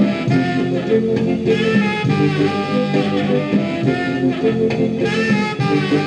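Swing-style jazz music playing from a 45 rpm record on a 1956 RCA 7-HF-45 Orthophonic high-fidelity record player, through its four-tube push-pull amplifier and separate woofer and tweeter, with the lid closed.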